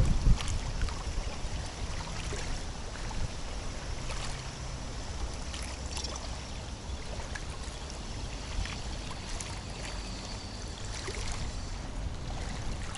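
Strong wind rumbling on the microphone over small waves lapping and splashing, with a loud low thump right at the start and a few light clicks.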